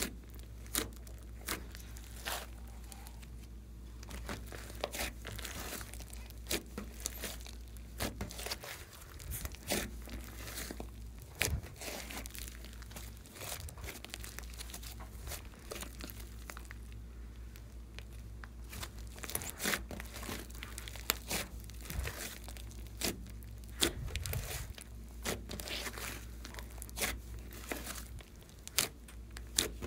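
Slime being squished and stretched, giving off irregular sharp sticky crackles and pops, over a steady low hum.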